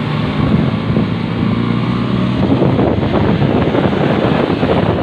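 Wind rushing over the microphone on a moving motorcycle, with a steady low engine hum underneath. About halfway through, the wind noise turns rougher and more buffeting.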